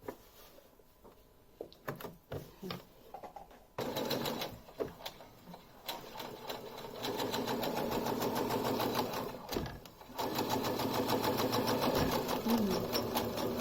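Brother electric sewing machine stitching a test seam: a few light clicks, then the machine runs from about four seconds in, stops briefly about ten seconds in, and runs again.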